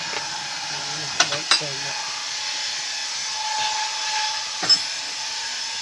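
Power tool working wood: a steady hiss, broken by a few sharp knocks, two about a second in and one near the end.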